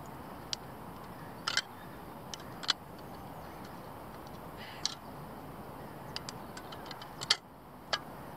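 Metal spoon stirring food in an open tin can, scraping and clinking against the tin: several short, sharp clinks at irregular intervals, the loudest near the end, over a steady background hiss.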